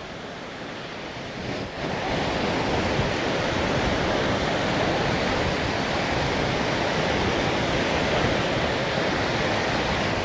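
Heavy wind rushing on the microphone over breaking surf, a steady roar that gets louder about two seconds in.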